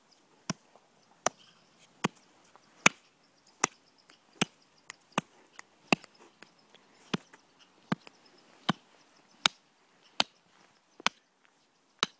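A hatchet chopping down into the bottom of a hole dug in snow, about fifteen sharp, evenly spaced strikes a little under a second apart.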